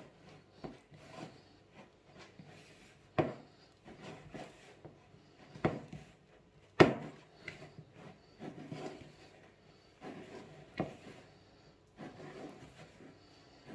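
Manti dough being kneaded by hand in a bowl: soft squishing and rubbing, broken by a few sharp knocks as the dough is pushed down against the bowl.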